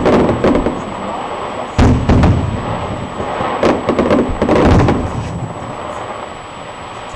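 Aerial firework shells bursting: several loud bangs a second or two apart, each trailing off in a rumbling echo, with the bursts thinning out over the last couple of seconds.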